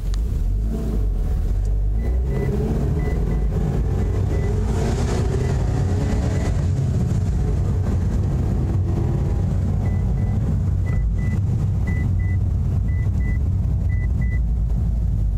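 2008 Mitsubishi Eclipse running in gear, heard from inside the cabin: a steady low rumble whose pitch drifts as the car coasts. With the clutch out the car makes a knocking that grows with RPM and stops when the clutch is pushed in, pointing to the clutch or driveline rather than the engine itself. A faint high beep repeats in two runs, early and late.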